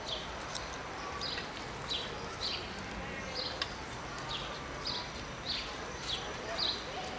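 A bird calling over and over with short, high chirps that fall in pitch, about one every half second to second, over a low steady background with a few faint clicks.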